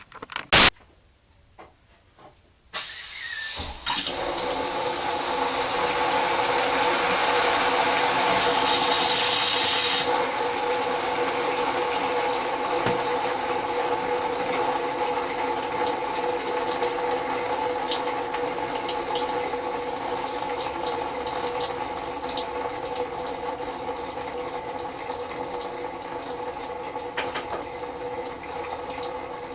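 Water running hard from an open faucet into a sink, driven out by compressed air forced into the water heater's plumbing during a sediment flush. It starts suddenly about three seconds in after a click, is loudest with an added hiss around eight to ten seconds, then settles to a steady rush.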